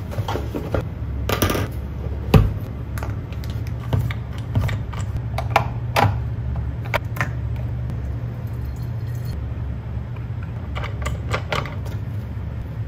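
Plastic parts of a handheld steam cleaner handled and fitted together: irregular clicks and knocks as the hose, flat nozzle and microfiber pad go on, over a steady low hum.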